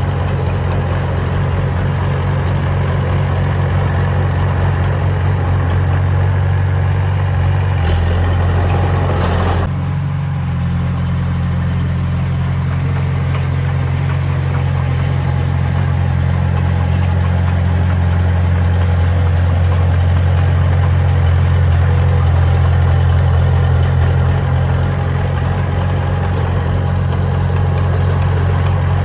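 Diesel engine of heavy earthmoving machinery running steadily at a low, even pitch. It grows louder and rougher for a couple of seconds around eight seconds in, then settles back.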